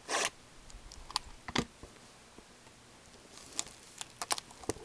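Shrink wrap on a sealed trading-card box being torn open along its red tear strip: a short rip at the start, then scattered crinkles and small clicks as the wrapper and box are handled, more of them near the end.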